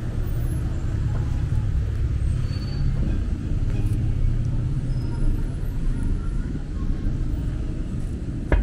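City street ambience: a steady rumble of road traffic going by, with faint voices and a sharp click near the end.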